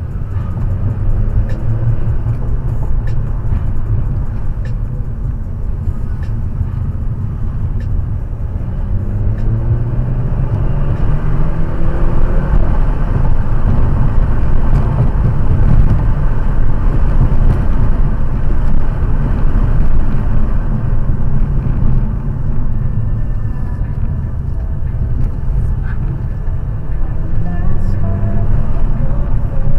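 BMW F30 328i's N20 turbocharged four-cylinder engine and tyre noise heard from inside the cabin as the car is driven hard through bends. The engine rises in pitch and gets louder as it pulls out of corners, about nine seconds in and again near the end.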